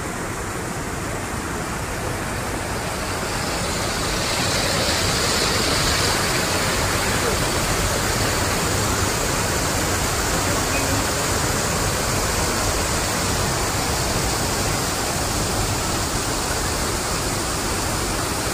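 Water pouring over a small dam's weir in a steady, even rush that grows louder over the first few seconds and then holds.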